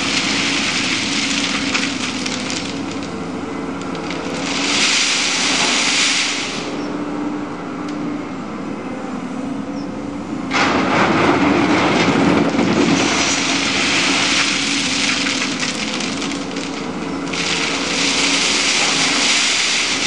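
Road-rail excavator's diesel engine running steadily while its bucket digs into and scrapes through railway ballast stones, with crunching and rattling of stone. The loudest crunching begins suddenly about halfway through, and there are two hissing bursts, one before it and one near the end.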